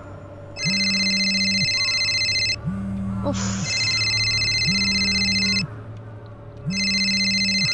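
Smartphone ringing with an incoming call: an electronic ringtone in bursts of about two seconds with short gaps, starting about half a second in, over the phone's vibration motor buzzing in pulses of about a second.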